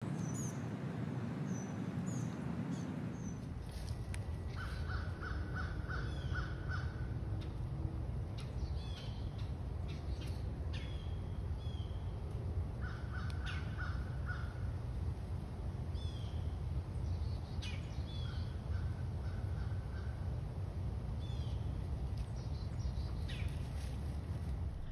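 Wild birds calling outdoors: a rapid run of repeated notes lasting about two seconds comes three times, with short downward-sliding chirps in between, over a steady low rumble.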